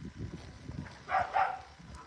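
A puppy gives two short, sharp yaps in quick succession a little past the middle, over light crunching of paws on gravel.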